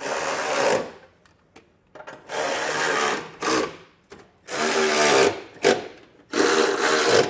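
Cordless ratchet with a 13 mm socket running in four short bursts, about a second each with pauses between, as it spins bolts down snug on the running-board brackets.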